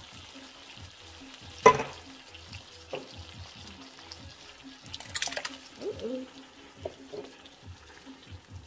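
A spatula knocking and scraping against a tin can and a metal pan as canned tomato sauce is scooped into the pan. There is a sharp knock about two seconds in and a short clatter around the middle, over soft background music.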